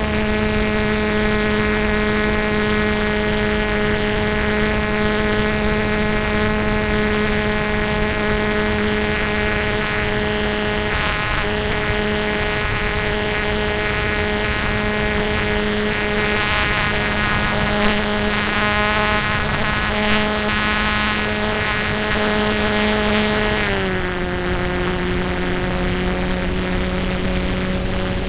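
Beaver airplane's motor and propeller running at a steady pitch, heard from a camera on board. The pitch drops a step about 24 seconds in as the throttle is eased back, and two brief knocks come a couple of seconds apart about two-thirds of the way through.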